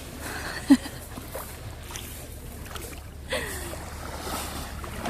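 Shallow sea water washing and sloshing over a pebble beach around wading feet, a steady watery hiss with a few brief faint pitched sounds.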